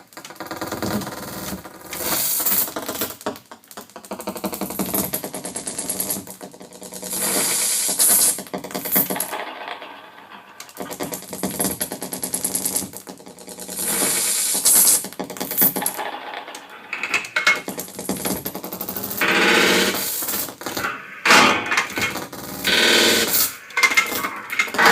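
Improvised electroacoustic music played on a Revox A77 reel-to-reel tape recorder: tape-manipulated sounds in irregular bursts, with rattling clicks, pitches that slide up and down, and hissing noise, each starting and cutting off every second or two.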